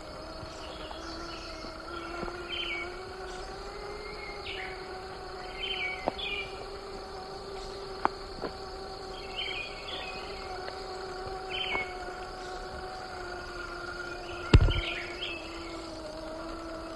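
RC crawler's electric motor and gears whining steadily as it crawls slowly, the pitch drifting a little. Several sharp knocks and one louder thump about fourteen seconds in, with birds chirping in short bursts in the background.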